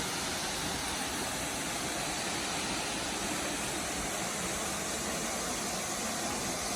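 Steady rushing noise of a waterfall running with little water.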